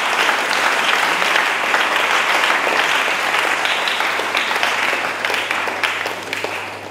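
Congregation clapping together, a dense patter of many hands that fades out near the end.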